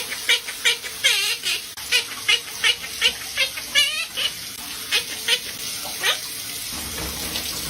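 Pet parrot chirping and whistling: a quick series of short calls and warbled trills, about two to three a second, that stops about six seconds in.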